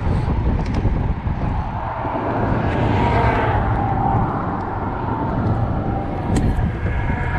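Steady outdoor rumble of passing traffic, with one vehicle swelling and fading about three seconds in. A light click sounds near the end.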